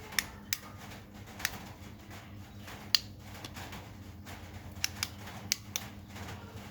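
Irregular sharp clicks and taps of small hard parts being handled, about eight in all with the loudest about three seconds in, over a steady low hum.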